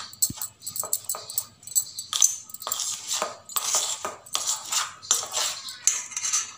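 A metal spoon scraping and stirring dry besan-and-spice masala in a steel bowl, in a quick run of rhythmic scrapes.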